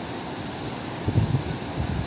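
Turbulent white water rushing and churning over rocks, a steady loud rush. From about a second in, a few low gusts of wind buffet the microphone.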